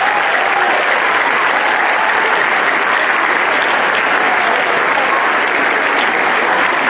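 A large crowd applauding steadily, with voices cheering and whooping over the clapping.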